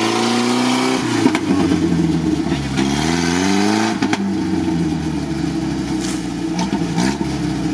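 UAZ off-roader's engine revving as it works through deep swamp mud, its pitch rising and falling. There is a strong climb about three seconds in and a shorter one near the end, with a few faint knocks.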